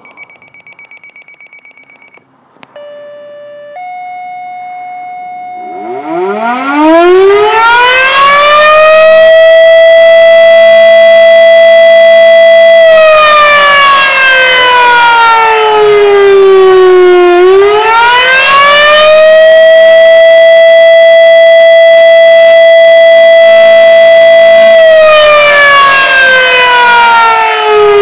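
Electronic alert tones: a run of rapid beeps, then two held steady tones. After them the fire station's pole-mounted outdoor fire siren winds up from a low growl to a loud high wail. It holds the wail, then falls and rises again twice, sounding the alert that calls out the volunteer firefighters.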